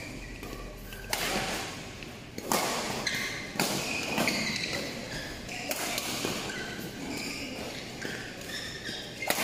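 Badminton rally: sharp racket strikes on the shuttlecock, about five at irregular intervals, with short high squeaks of sneakers on the court mats between them.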